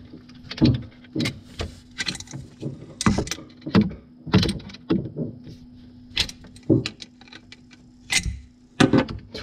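Irregular metallic clicks and knocks as a wrench and braided stainless-steel flexible tap hoses are handled and the hose nuts are screwed onto brass fittings under a sink, over a steady low hum.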